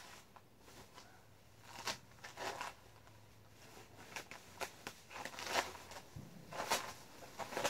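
Faint, scattered rustling and crinkling as a person in a disposable protective coverall moves about and handles a respirator, with a few short clicks and crinkles in the second half.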